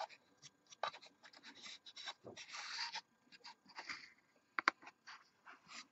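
Fingers handling a small plastic McLaren MP4/4 scale model car on its display base: soft scratches and rubs with scattered light clicks, one sharper click about two-thirds of the way through.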